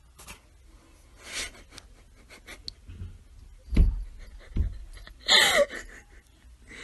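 A person's stifled, breathy laughter in short bursts, with two low thumps a little past halfway.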